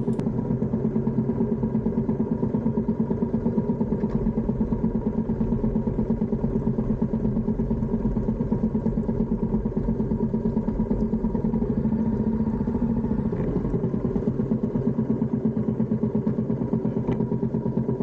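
Small motor scooter engine running steadily under a slow ride, heard from on board, swelling slightly about twelve seconds in.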